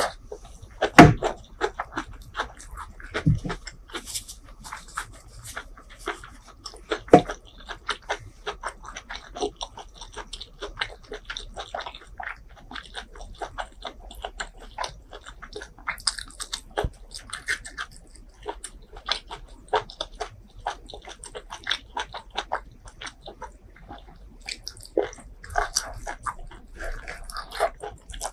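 Close-miked eating sounds: wet chewing of spicy beef tripe curry and green vegetable stalks, with many small crunches and clicks. A few louder crunchy bites stand out, the loudest about a second in and another around seven seconds.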